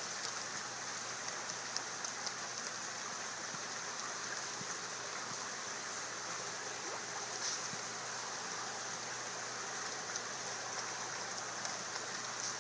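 Steady rushing, splashing water, with faint scattered drips.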